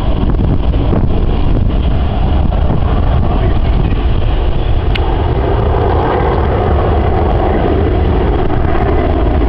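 Four turbofan engines of a Boeing C-17 Globemaster III running as the transport flies low overhead, a steady loud noise with a deep rumble that grows fuller in its middle range from about halfway through as the aircraft closes in.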